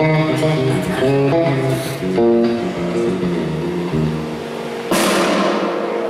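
Live progressive metal band playing loud through a PA: electric guitar and bass lines moving from note to note over drums, with a cymbal crash about five seconds in.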